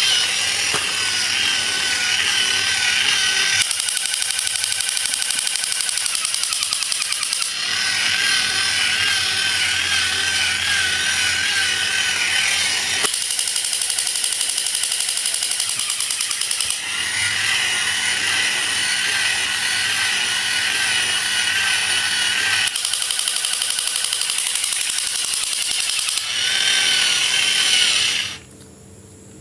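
A battery-powered toy's small motor whirring steadily, with a warbling electronic tone that comes and goes every few seconds. The sound cuts off sharply near the end.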